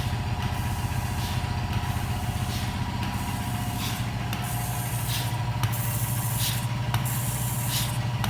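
A motor or engine running steadily with a low hum, with short bursts of hiss every second or so.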